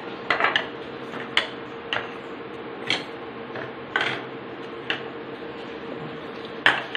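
Small ceramic bowls clicking and knocking on a countertop as they are picked up and set down, sharp single clicks about once a second, over a steady faint hum.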